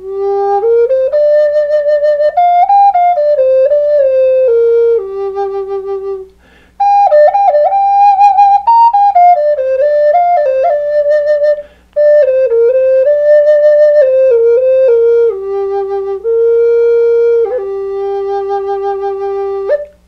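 Madrone burl and black walnut Native American flute in G minor playing a slow melody in three phrases, with short breaks for breath between them. The notes step up and down between held tones, and some of the longer held notes pulse.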